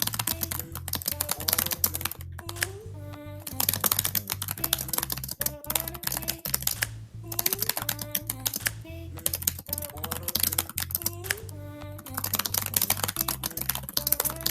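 Rapid, continuous clicking like typing on a computer keyboard, over looping background music with a steady bass line and a short repeating melodic phrase.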